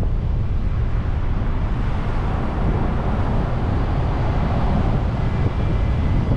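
Steady rumble of a car being driven, with wind buffeting on the microphone and a broad hiss that swells and fades in the middle.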